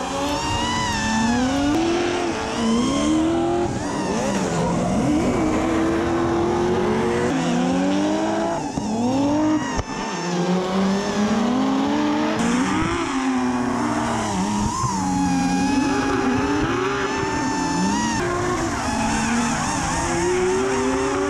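Drift cars' engines revving hard and falling back, with tyres squealing as they slide, mixed with the whine of an FPV racing drone's motors. The pitches keep rising and falling throughout.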